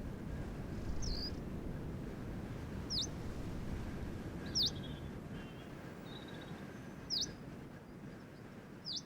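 A small bird calling: five short, sharp high chirps a second or two apart, over a steady low background rumble.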